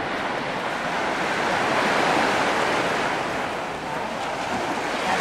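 Mediterranean surf breaking on the beach: a wave swells to a peak about two seconds in and washes back, and the next one builds near the end.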